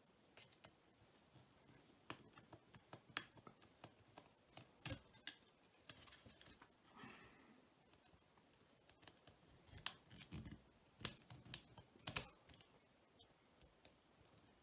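Faint, irregular clicks and scrapes of a small screwdriver working the two fiddly screws that hold the motor bogie in a Lima 00 gauge Class 31 model locomotive's chassis.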